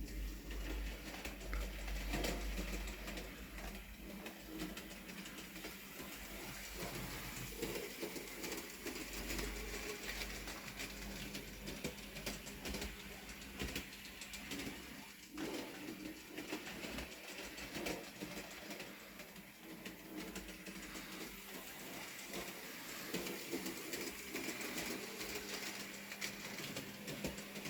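Bachmann Peter Sam model locomotive running along the track with a short train of wagons: a steady motor hum with many small clicks from the wheels and rail joints.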